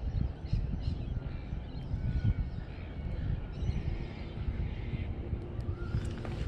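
Wind buffeting the microphone as an uneven low rumble, with a few faint bird calls above it.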